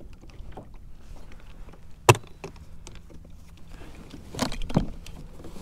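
Hard plastic equipment case being opened: a sharp latch snap about two seconds in, a lighter click just after, then a short cluster of clatter and knocks near the end as the case is handled.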